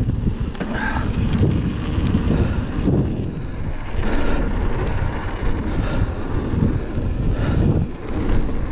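Wind rushing over the camera microphone while a mountain bike rolls fast along a dirt singletrack, its tyres rumbling over the surface, with scattered clicks and rattles from the bike.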